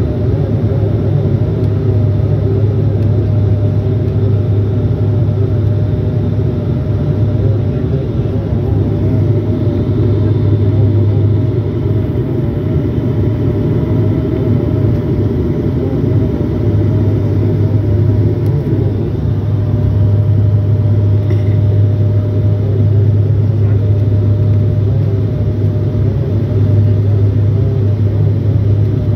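Cabin noise inside a Bombardier Dash 8 Q400 turboprop on approach with its landing gear down: a steady low drone from its Pratt & Whitney PW150A engines and six-bladed propellers over a rush of airflow. The low hum eases for a few seconds about midway, then returns.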